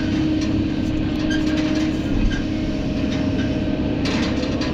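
Kobelco SK200 hydraulic excavator's diesel engine and hydraulics working under load, heard from inside the cab as the bucket digs and lifts a load of soil. A steady hum and rumble, with a few light rattles near the end.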